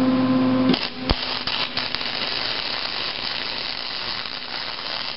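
A steady electrical hum, then about a second in a welding arc strikes and crackles and sizzles steadily as a tack weld is laid on a steel differential spider gear.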